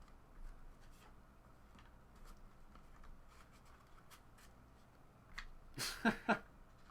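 Trading cards and their packaging being handled: faint rustling and light ticks, then a short burst of louder crinkly scraping about six seconds in.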